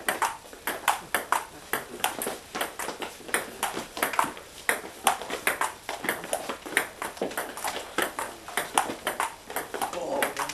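Table tennis rally: the celluloid ball clicks off paddles and table in a quick, unbroken run of hits, several a second.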